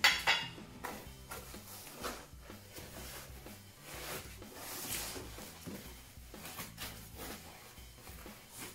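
Packing paper and plastic wrap rustling and crinkling in irregular bursts as parts are unwrapped from a cardboard box, starting with a sharp crinkle as a metal bracket in a plastic bag is set down. Faint background music runs underneath.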